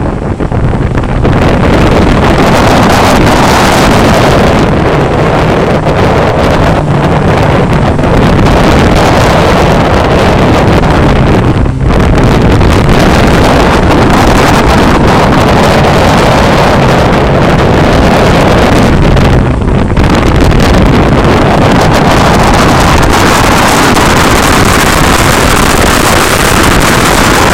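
Mazda 323F BA rally car's 1.5-litre four-cylinder engine driven hard, heard close to the front left wheel with heavy wind buffeting on the microphone and tyre noise. The sound dips briefly about twelve seconds in and again about twenty seconds in.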